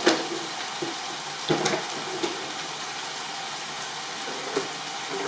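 Food sizzling steadily in oil in a hot cooking pan, with a few short clicks of a utensil against the pan: one at the start, a couple about a second and a half to two seconds in, and one near the end.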